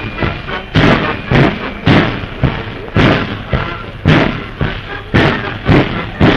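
Heavy thuds in a steady march rhythm, about two a second, with a faint band tune underneath, on old, dull-sounding film audio.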